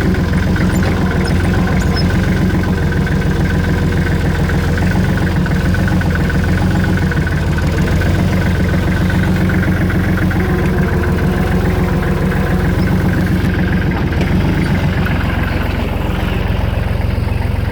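Kubota L39 tractor loader backhoe's four-cylinder diesel engine running steadily while the tractor drives up and lifts a pallet with its loader forks.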